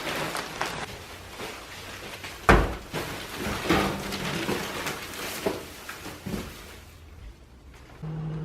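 Scattered knocks and clatter of objects being handled, with one loud thump about two and a half seconds in. A steady low hum starts near the end.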